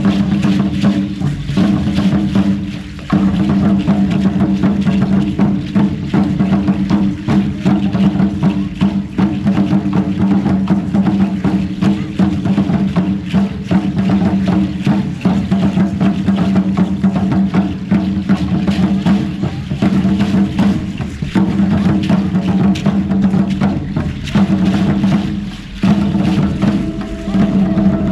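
Live music for a traditional indigenous dance: a steady held pitched tone over fast, dense percussion with sharp wood-block-like knocks, pausing briefly twice.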